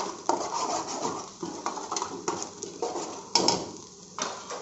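Steel ladle scraping and knocking against a metal frying pan in a series of irregular strokes as chopped garlic is stirred in hot oil, with a light sizzle from the frying garlic underneath.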